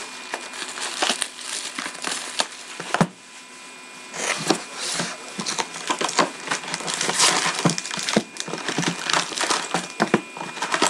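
Hands tearing open a sealed cardboard box of hockey cards and pulling out the foil card packs: crinkling wrapper and rustling cardboard. There is a sharp click about three seconds in, and the crinkling gets busier and louder from about four seconds on.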